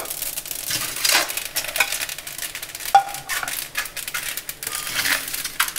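Mustard and sesame seeds crackling and popping in a hot, dry cast iron kadai with no oil, as pieces of steamed muthiya drop in and are turned with a perforated metal skimmer that scrapes and clinks against the pan.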